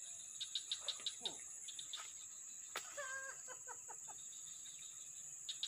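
Steady high insect drone with two short trains of rapid, clicky chirps, and a brief stepped clucking bird call about three seconds in.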